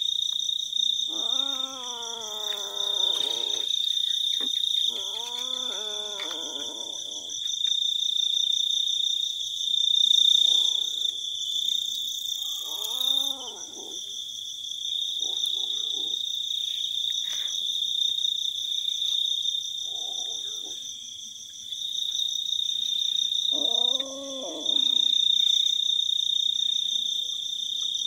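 Kittens giving several drawn-out meows, each rising and falling in pitch, over a steady high chorus of night insects.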